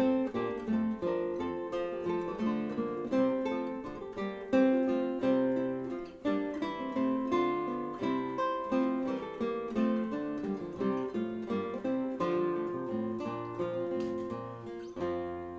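Background music: a solo acoustic guitar piece of plucked notes in several voices, fading near the end.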